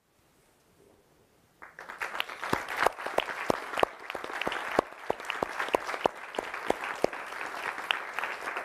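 Audience applauding, starting about one and a half seconds in after a brief near silence; a few nearby claps stand out sharply above the rest.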